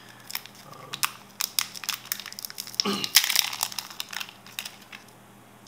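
Clear plastic packaging crinkling in the hands, a run of sharp crackles and clicks that is densest about three seconds in.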